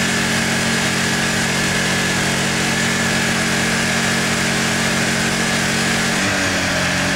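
Honda EU10i inverter generator running steadily under full load. About six seconds in, its engine note shifts.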